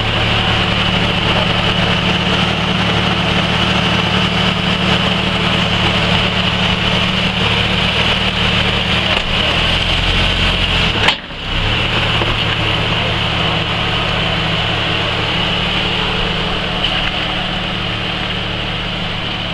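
Lifted Jeep Cherokee's engine idling steadily, with a brief drop-out about eleven seconds in.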